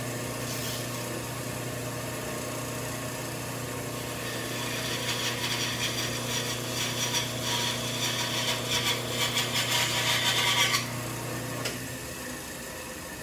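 Band saw motor running with a steady low hum; from about four seconds in the blade cuts straight across a wooden board with a rasping noise that grows louder, then stops suddenly when the cut is through. Near the end the motor hum dies away.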